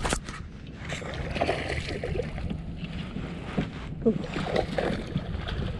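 Water splashing and sloshing at the side of a kayak in uneven bursts, with a sharp click right at the start: a bass hooked on a soft-plastic fluke being fought to the kayak.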